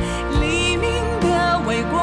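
The drama's closing theme song: a singer holding long notes with vibrato over steady instrumental backing.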